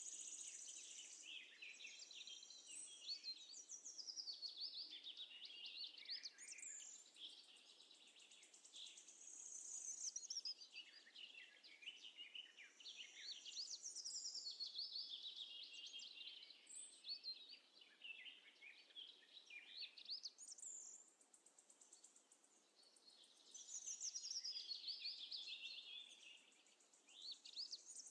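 Faint birdsong: phrases of quick, high, warbling chirps that come and go every few seconds, over a thin, steady high note.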